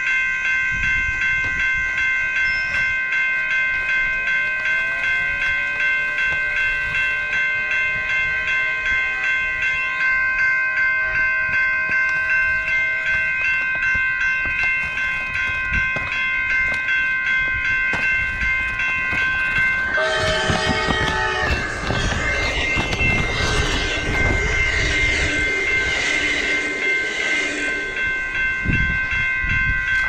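A train with a steady ringing tone pulsing a couple of times a second throughout. A horn sounds briefly about twenty seconds in, followed by the rattling noise of the train running past.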